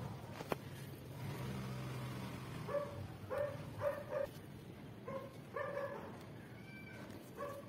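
A dog yapping: a run of short, high barks starting about three seconds in.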